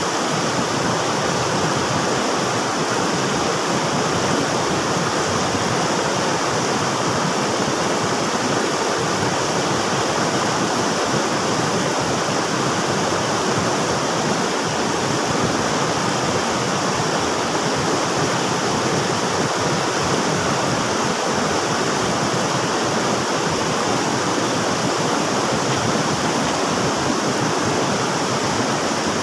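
River water rushing and splashing, a steady, unbroken rush.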